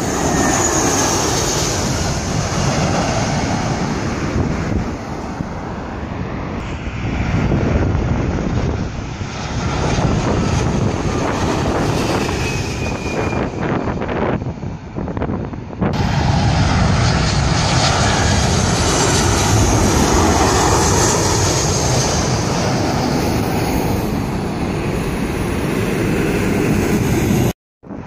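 Jet airliners on landing approach passing low overhead: loud, steady jet engine noise that swells and eases, with high whines gliding down in pitch. The sound jumps abruptly louder about 16 seconds in and drops out briefly near the end.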